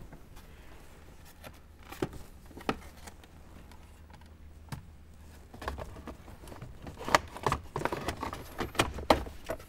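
Hard plastic dash trim bezel being handled and fitted against the dashboard: a few scattered clicks and taps, then a busier run of rattling clicks and knocks in the second half as it is pushed into place.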